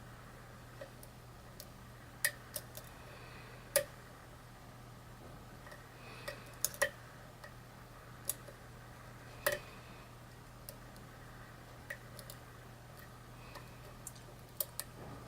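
Irregular small metallic clicks and ticks of a thin lock pick and tension wrench working the pin stack of a challenge lock, pins clicking as they are set.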